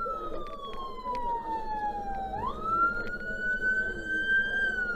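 Fire engine siren wailing: a slowly falling tone that sweeps quickly back up about halfway through, climbs slowly, then starts falling again near the end.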